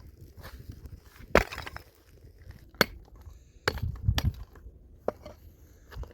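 Hard objects knocking together: a series of sharp knocks and clatters at uneven intervals, the loudest about a second and a half in and just before three seconds, with a quick cluster around four seconds.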